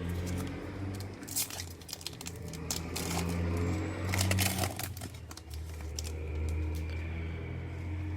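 Trading cards and their pack wrapper being handled: crinkling and rustling with sharp clicks as cards are slid and flipped, over a steady low hum.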